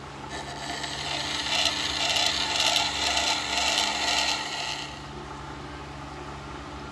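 Scissor blade ground against the turning stone of a WEN water-cooled wet sharpening system in a scissor jig: a gritty scraping for about four and a half seconds that stops about five seconds in, over the steady hum of the grinder's motor. These are the last passes to take the remaining red marker off the bevel.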